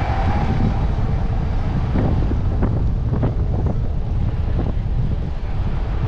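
Wind buffeting the microphone in a steady low rumble. Between about two and five seconds in, a run of short, light clicks and rattles cuts through it.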